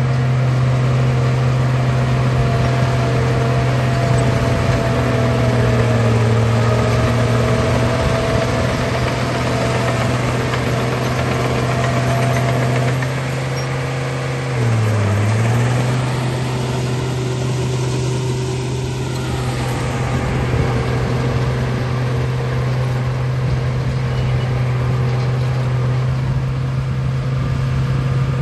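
Bulldozer engine running steadily with a deep hum, its pitch sagging briefly about halfway through, as under sudden load, then recovering.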